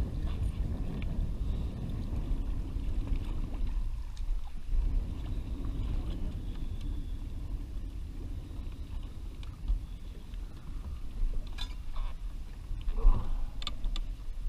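Water lapping against a small boat's hull under a steady low rumble of wind on the microphone, with a few sharp clicks and knocks near the end as the landing net is handled over the side.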